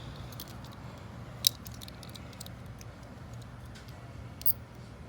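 Small sharp clicks and ticks of a plastic wiring-harness connector being handled and pried at with a screwdriver, with one louder click about a second and a half in and another near the end, over a steady low hum.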